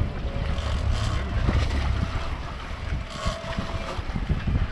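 Wind buffeting the microphone, with water sloshing against the boat's hull.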